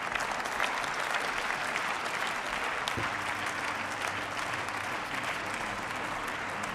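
Members of parliament applauding, many hands clapping steadily.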